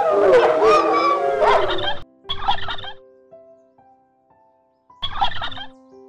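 Spotted hyena calls, several overlapping calls swooping up and down in pitch, cut off suddenly about two seconds in. Then two short rattling animal calls about three seconds apart, with a rising run of chime-like musical notes between them.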